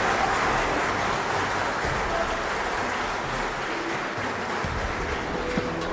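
A large crowd applauding: dense, steady clapping that eases off a little toward the end, as held music notes come in.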